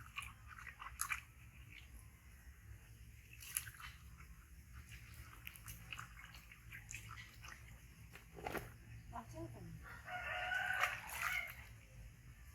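A drawn-out animal call lasting about a second, heard about ten seconds in, over scattered light clicks and taps.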